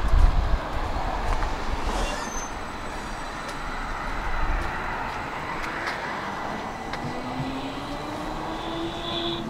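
Tram running on its rails, with a heavy low rumble over the first two seconds that then eases into steady running noise. About seven seconds in, a thin whine starts and rises in pitch to the end.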